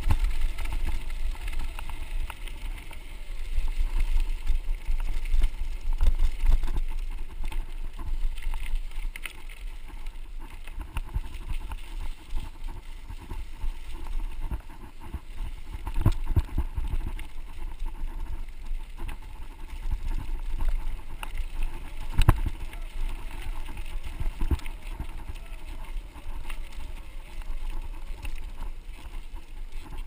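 Mountain bike rolling along a gravel dirt road, its tyres crunching on the gravel and the bike rattling over bumps, with a few harder knocks. Wind rumbles on the handlebar-mounted camera's microphone.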